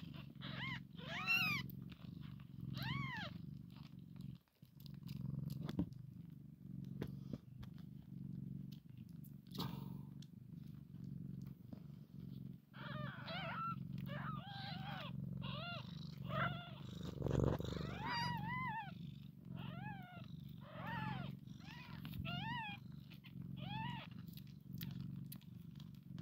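Sphynx mother cat purring steadily while nursing newborn kittens, with the kittens' short, high, rising-and-falling squeaks coming in runs, a few near the start and many through the second half.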